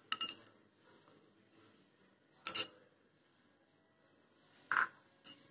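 A spoon clinking against a vessel as oil is spooned into a cast-iron kadai: four light, ringing clinks, the first two about two seconds apart and the last two close together near the end.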